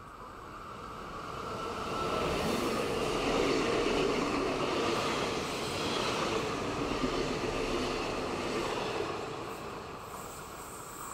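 A narrow-gauge Zentralbahn electric multiple unit passing close by: its running noise grows over the first couple of seconds, holds loud for several seconds as the coaches go past, then fades as the train moves away.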